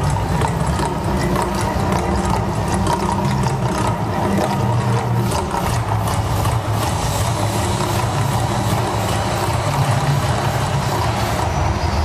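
The Mirage's artificial volcano erupting: a loud, deep, steady rumble with the rush of water jets and crackling pops over it, the crackles thickest in the first half.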